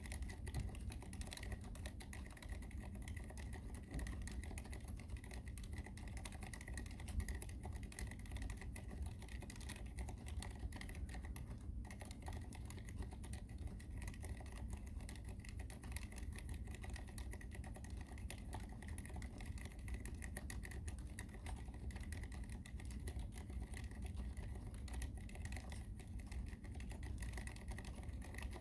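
Typing on an ABKO AR87 full-aluminium mechanical keyboard with unlubricated Cherry MX Silent Red switches: a continuous, rapid stream of keystroke clicks.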